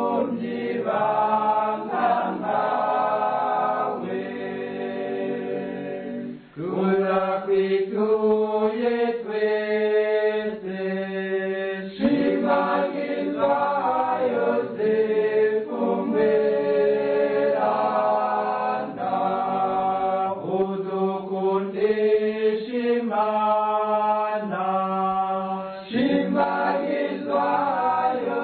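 Choir singing a Kirundi Catholic hymn to Saint Joseph, in long held notes.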